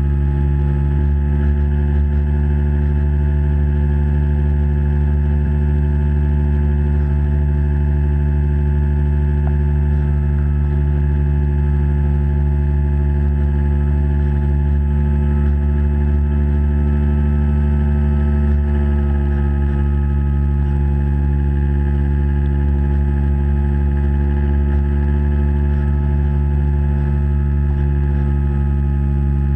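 Steady hum from the motor of a HobbyKing radio-controlled model boat, holding one speed with many fixed tones, heard through a camera running underwater.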